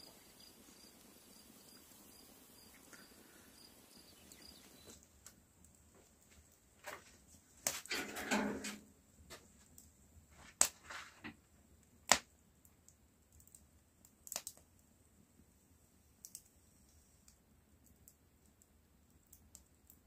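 A cricket chirping in a steady pulse of about four chirps a second, which stops about four and a half seconds in. After that come scattered sharp clicks and a short rustling crunch, the loudest clicks about ten and a half and twelve seconds in.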